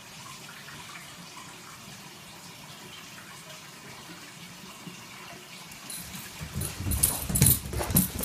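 Faint steady room hiss for about six seconds, then a dog scrambling and thrashing on a hardwood floor: irregular thumps and sharp clicks of claws and paws.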